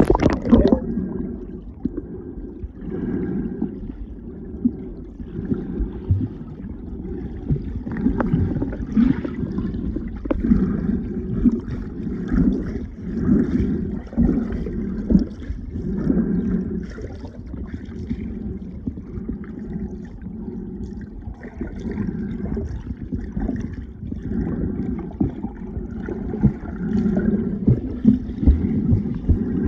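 River water sloshing and gurgling against a canoe hull, with small irregular splashes throughout.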